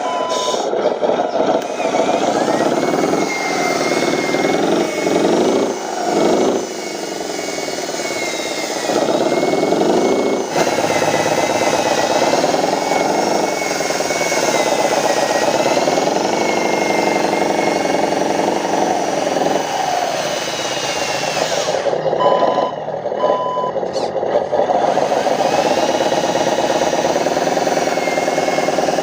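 Radio-controlled Hino 500 dump truck model driving, its engine sound rising and falling in pitch with the throttle, with a thin high whine over it. A reversing beeper sounds briefly at the start and again, twice, about 22 seconds in.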